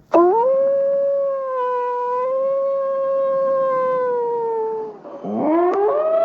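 A canid howling: one long howl that rises quickly, holds steady for about five seconds and sags slightly before breaking off. A second howl swoops up from low near the end and settles a little higher.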